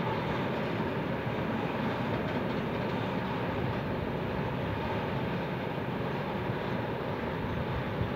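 Freight train wagons rolling across a rail bridge: a steady rolling rumble with no distinct beats.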